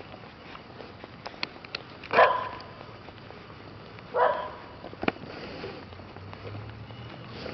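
A dog barks twice, about two seconds apart, with a few short sharp clicks around the barks.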